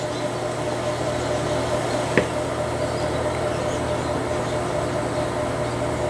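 Steady hum of a small machine running, with one sharp click about two seconds in.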